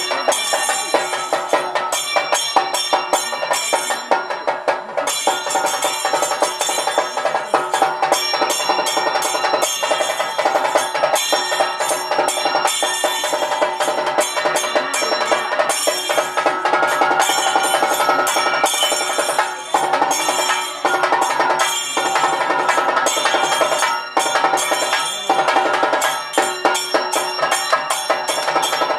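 Traditional temple ritual music: rapid drumming and ringing bells over sustained pitched tones, running on without a break.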